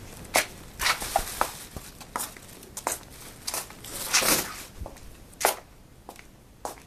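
Crinkly plastic or paper rustling and crackling in irregular sharp bursts, with a longer rustle about four seconds in.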